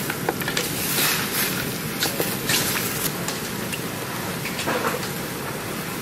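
Spicy pork ribs in sauce sizzling steadily in a wok, with scattered clacks of a wooden spatula stirring against the pan.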